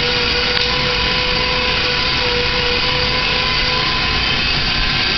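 A motor or engine running steadily, a constant rushing noise with an even whine held throughout.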